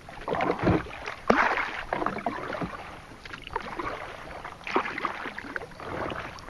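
Kayak paddle strokes in the water: irregular splashes and drips as the blade dips and lifts, the loudest a little after a second in and again near five seconds.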